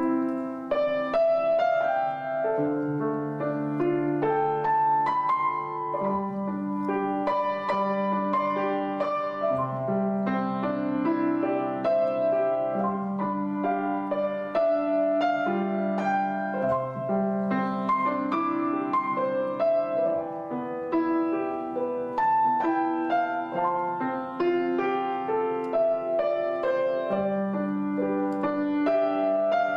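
Background piano music: a steady run of notes over held bass notes.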